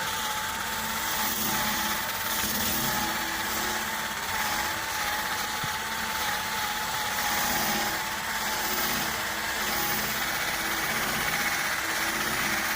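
A steady engine-like hum with a thin, slightly wavering whistle-like tone above it, holding an even level throughout.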